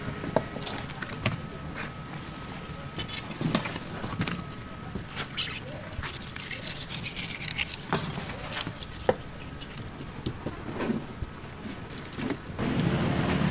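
Scattered knocks and scrapes of a large knife cutting through a giant ocean sunfish's thick flesh on a wet wooden board, at uneven intervals over steady background noise.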